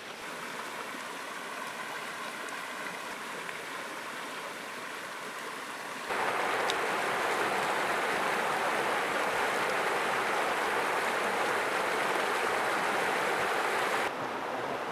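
Steady rush of river rapids over rocks, cutting in suddenly and louder about six seconds in and dropping back a little near the end. Before it, a softer wash of water at the shoreline.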